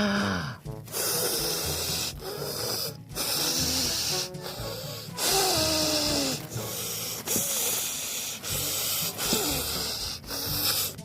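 Heavy, drawn-out breathing in and out of a paper bag, about six long breaths of a second or so each, done as a hiccup cure.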